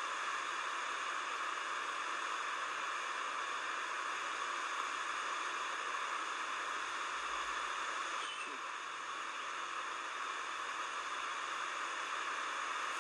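Steady, even hiss with no distinct sounds standing out of it.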